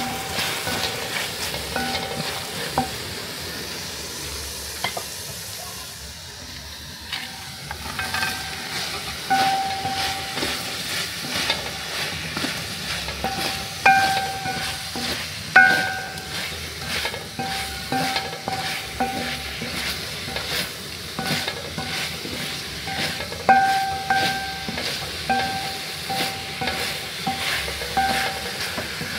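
Wooden spoon stirring and scraping soya chunks, onions and peppers around a large aluminium pot; many strokes draw a short squeaky tone from the pot. It goes quieter for a few seconds early in, then the stirring strokes come steadily, the loudest a little before the middle and about three quarters through.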